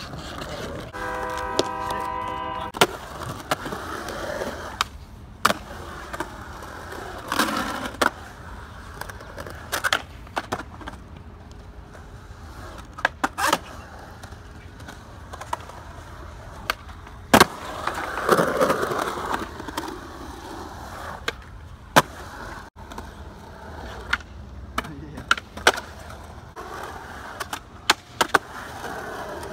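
Skateboard wheels rolling over concrete, with many sharp clacks of the board popping and landing spread throughout. About a second in, a held pitched tone lasts nearly two seconds.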